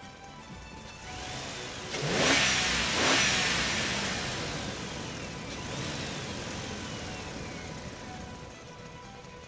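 Small electric motor and gearbox of a WPL B24 RC truck whining sharply up in pitch as the throttle is punched, twice about two and three seconds in, then fading as it eases off.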